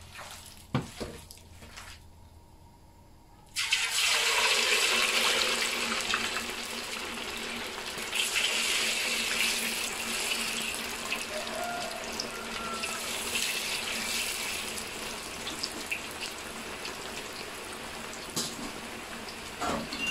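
Batter-coated marinated pork going into a wok of hot oil: a loud sizzle starts suddenly a few seconds in, swells again as more pieces go in, then settles into steady hissing frying. The oil is hot enough for deep-frying.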